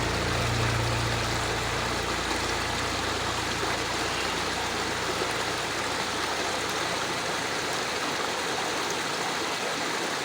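Steady heavy summer rain, an even hiss with no let-up. A low hum underneath fades out over the first few seconds.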